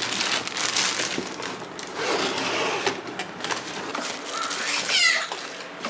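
Clear plastic packaging bag crinkling and a cardboard box rustling as hands pull the packed items out, a steady run of crackles and scrapes.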